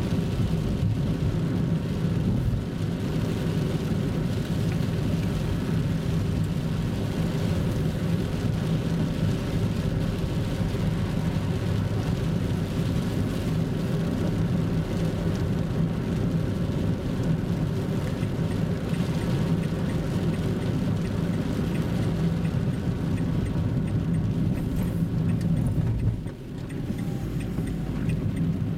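Steady engine and road noise of a moving car, heard from inside the cabin: a constant low hum that dips briefly near the end.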